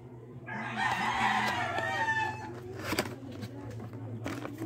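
A rooster crows once, a call of about two seconds beginning about half a second in. Soon after it there is a sharp click of cardboard being handled.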